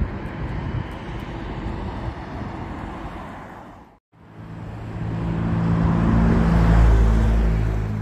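Outdoor traffic rumble that fades and cuts out briefly about four seconds in. Then a large motor vehicle passes close by: its engine hum swells to loudest near the end, drops slightly in pitch as it goes past, and begins to fade.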